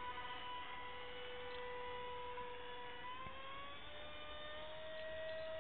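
Electric motor and propeller of a radio-controlled airplane whining steadily in flight, rising a little in pitch about two-thirds of the way through and holding there.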